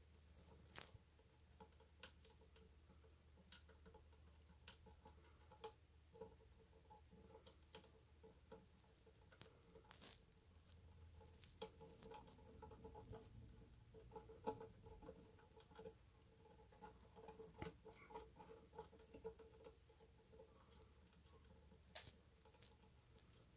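A mouse chewing and scratching at a cardboard tube from inside: faint, irregular small clicks and scrapes, busiest in the middle stretch.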